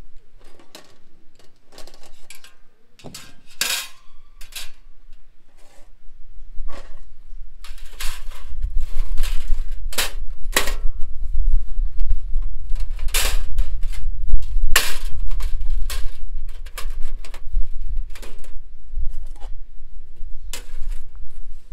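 Scattered clinks and knocks of cookware and utensils being handled, with a low rumble underneath from about eight seconds in.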